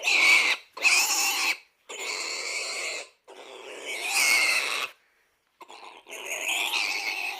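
Pig sound effect: a string of about six rasping grunts and squeals, each lasting up to a second and a half, separated by short gaps.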